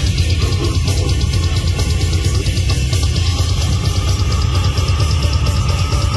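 Live metal band playing loud: drum kit with fast, evenly repeating cymbal strokes over bass and guitar, and a long held tone coming in about halfway through.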